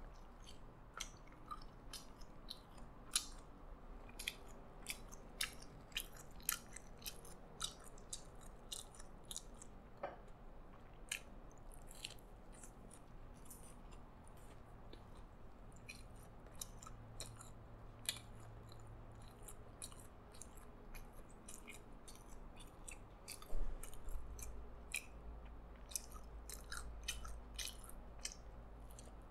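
Close-miked chewing of a burger, with frequent wet mouth clicks and smacks and a louder thump about three-quarters of the way through.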